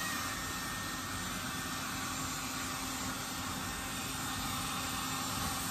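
Small handheld electric hair dryer running steadily, blowing hot air onto a wet cat's fur: an even rushing hiss with a faint steady hum.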